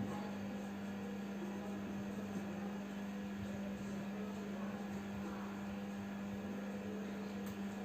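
Steady low hum with a faint hiss underneath: constant background noise in the recording.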